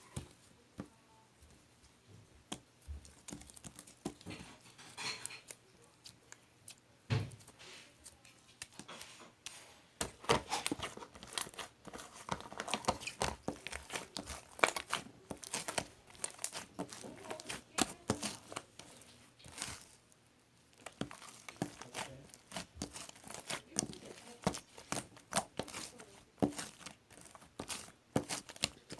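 Crinkling and tearing handling sounds: a dense run of small crackles and clicks, with quieter lulls near the start and about two-thirds through.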